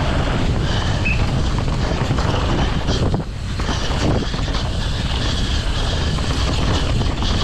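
Wind buffeting the microphone over a steady low rumble, with a brief drop in level about three seconds in.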